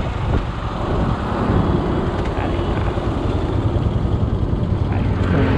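Motorcycle riding at road speed: its engine running steadily under heavy wind noise on the handlebar-mounted microphone.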